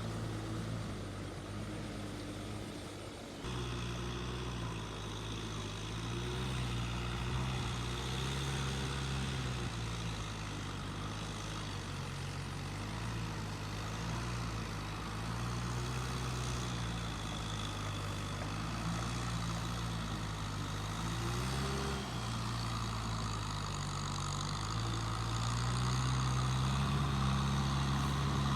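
An engine running steadily, its speed rising and falling now and then, with a brief break about three seconds in.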